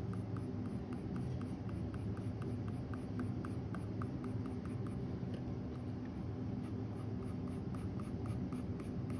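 Faber-Castell Polychromos colored pencil scratching across toned tan mixed-media paper in quick, short hatching strokes, several a second, laying in fur texture.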